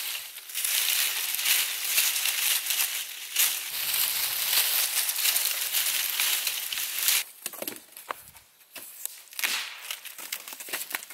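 Dry fallen leaves crackling and rustling as they are scooped up by hand in armfuls off the forest floor. From about seven seconds in the dense crackling gives way to sparser, separate snaps and cracks from handling a dead branch.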